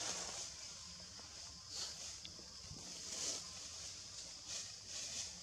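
High-pitched insect chorus in forest, swelling and fading about once a second, with faint rustles.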